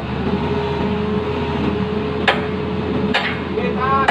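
Hitachi Zaxis 135 excavator's diesel engine running steadily, with two sharp metal knocks a little under a second apart, about two and three seconds in: sledgehammer blows on the boom. A short voice calls out near the end.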